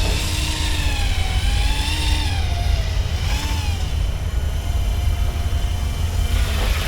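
RC helicopter tail-rotor propeller whirring, its pitch wavering up and down as the motor speed shifts, over a steady low rumble.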